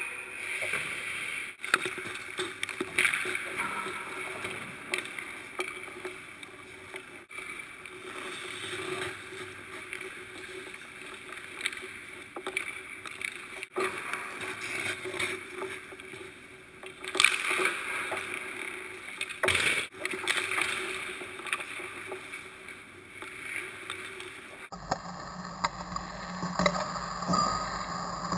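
Hockey skate blades scraping and gliding across rink ice, with a few sharp cracks of sticks striking pucks.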